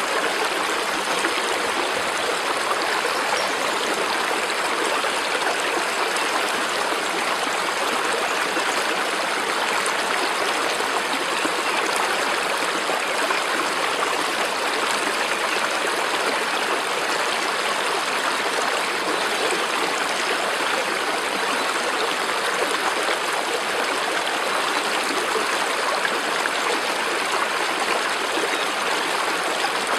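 Running water of a stream, an even, unbroken rushing.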